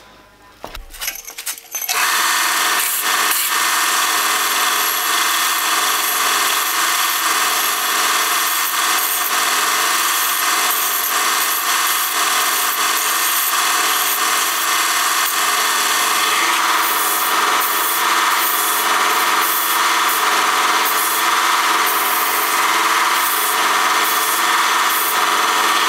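Bench belt sander running steadily, grinding the rough bandsawn ends of short stainless steel tube segments to clean them up. It starts about two seconds in, after a few knocks of metal pieces being handled.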